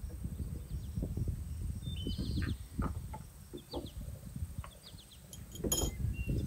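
Small birds chirping in short, scattered calls over a low steady rumble, with a brief clink near the end.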